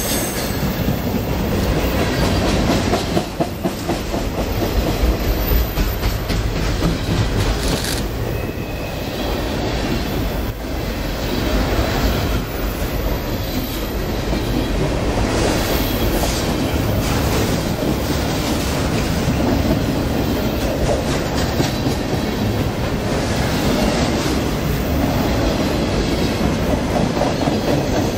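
CSX freight train of boxcars rolling past at close range: a loud, steady rumble with the wheels clacking over rail joints.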